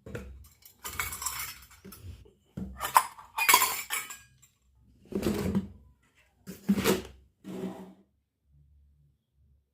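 Miniature stainless-steel toy cookware and utensils clinking and clattering as the pieces are handled, in a string of separate clatters that stop about eight seconds in.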